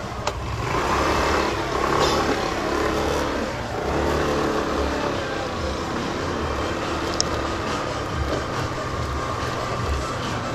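Small motorbike's engine running steadily while being ridden, with road and wind noise, swelling briefly about a second in.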